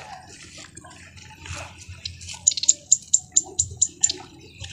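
Bait being changed by hand at a bait container: light handling and water sounds, then a quick run of short, sharp clicks, about four a second, in the second half.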